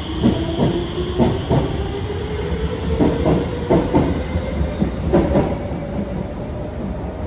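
Alstom Movia R151 metro train pulling out of the station. Its traction motor whine rises steadily in pitch as it gathers speed, and pairs of sharp clacks come about once a second as the wheels pass over a rail joint.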